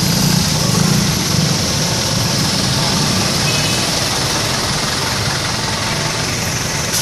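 Bus engine idling with a steady low rumble under constant traffic hiss; the rumble is strongest in the first second or so and then settles.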